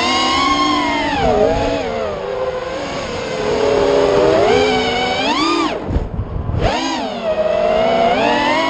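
FPV quadcopter drone's electric motors whining, the pitch rising and falling with the throttle. The pitch climbs sharply about five and a half seconds in, the whine cuts out for a moment as the throttle is chopped, then comes back.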